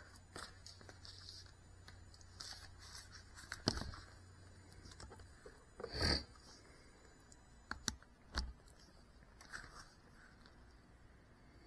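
Faint, scattered clicks, taps and rustles, with a louder knock about six seconds in and a few sharper taps around two seconds later. No motors are running.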